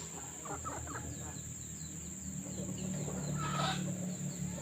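Chickens clucking faintly, with a short louder call about three and a half seconds in, over a steady low hum and a thin high hiss.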